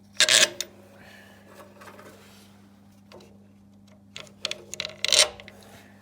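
Saw motor parts being handled during reassembly: two short bursts of knocking and rubbing of hard parts against each other, about half a second in and again around four to five seconds in, over a faint steady hum.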